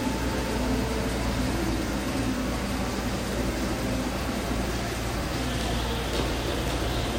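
A steady low hum with an even hiss over it and no distinct events.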